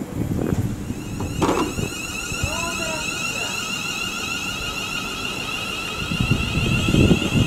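Class 350 Desiro electric multiple unit pulling away, its electric traction equipment giving a steady two-tone whine over the low rumble of the train. There is a single knock about a second and a half in.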